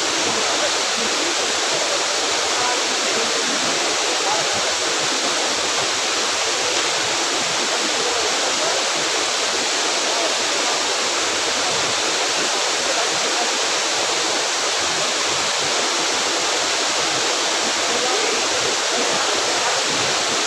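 Waterfall pouring steadily: a loud, even rush of falling water that does not change.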